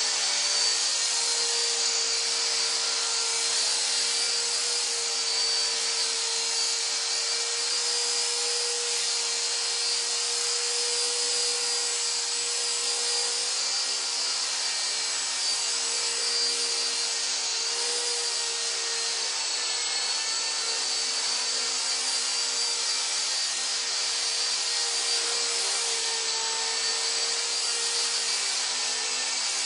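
Esky Honey Bee King V3 electric RC helicopter running with its skids on the ground: a steady high motor-and-gear whine over the whir of the rotor, its pitch wavering slightly as it is slid around on its training gear.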